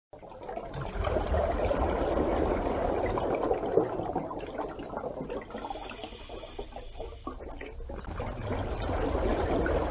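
Water bubbling and gurgling, a dense rush of bubbles that swells about a second in, eases off through the middle and builds again near the end.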